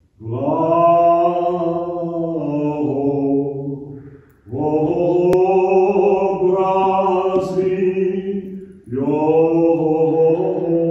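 Slow vocal chant sung in three long held phrases, the pitch stepping down within each phrase, with short pauses between them about four and nine seconds in.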